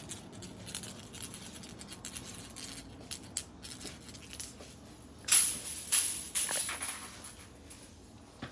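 A cat batting a ball toy around: a run of light rattling clicks. About five seconds in comes a louder rustle of fabric close to the microphone.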